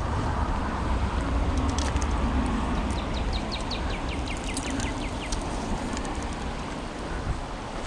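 A bird calling a fast run of about a dozen short, falling chirps, a few seconds in, over a steady rumble of wind on the microphone.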